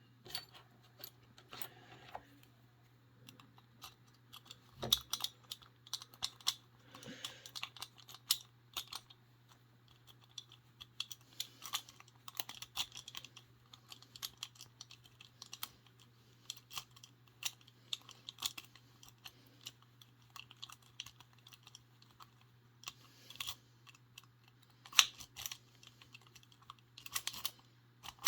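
Lock picking tools, a rake with a tension wrench, clicking and scraping against the pins in a discus padlock's keyway, in irregular flurries of small sharp metallic clicks. A faint steady low hum lies underneath.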